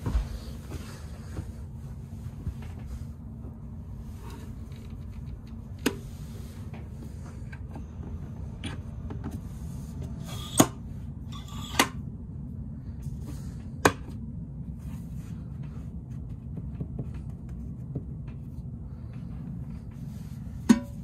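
Steady low rumble of an SBB Giruno (RABe 501) train running, heard inside the passenger coach, with several sharp clacks as a seat-back fold-down tray table is opened and handled.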